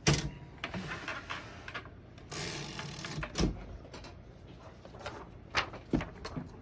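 Margin stops on a 1937 Royal KHM desktop typewriter being pressed down and slid along their rail: sharp metal clicks with scraping slides between them, a knock in the middle and a couple more clicks near the end.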